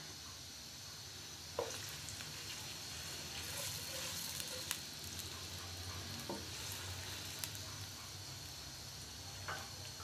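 Sliced onions sizzling in hot oil in a deep nonstick pan, stirred with a spatula that knocks against the pan a few times.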